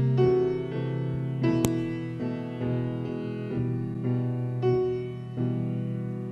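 Solo grand piano playing a slow piece, a new note or chord struck every half second to a second. There is a sharp click about a second and a half in.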